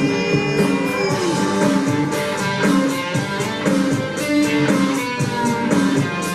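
Instrumental break of a country karaoke backing track: a picked guitar melody over a steady drum beat, with no singing.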